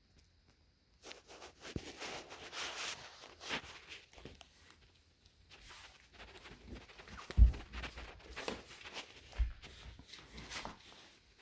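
Irregular rustling and rubbing with scattered soft thumps, the loudest a dull thump about seven and a half seconds in.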